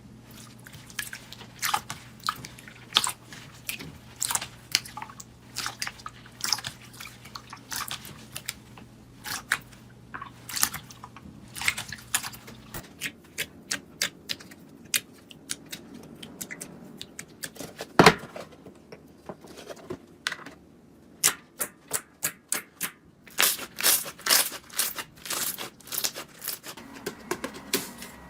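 Slime being handled, giving irregular crackling and popping clicks, with a fast run of clicks near the end. A steady low hum under the first half stops suddenly about halfway in, and one loud snap comes a little past the middle.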